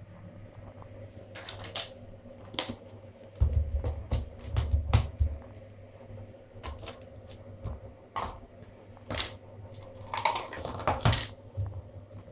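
Small plastic deli cups and their lids being handled: scattered sharp clicks and taps of plastic knocking and snapping, with a stretch of low rumbling bumps a few seconds in, over a faint steady hum.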